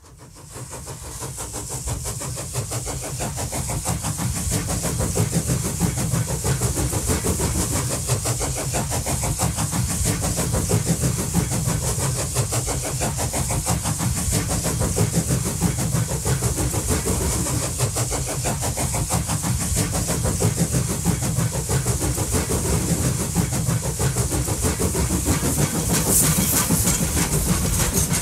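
Steam locomotive running: a steady low rumble with a constant high steam hiss, fading in over the first few seconds.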